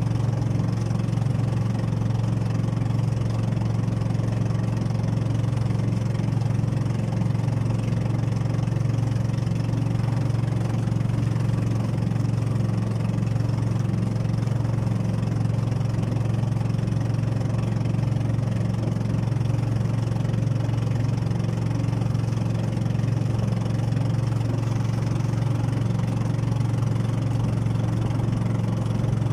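Outrigger boat's engine running at a steady speed, a constant low drone, with water splashing against the outrigger float.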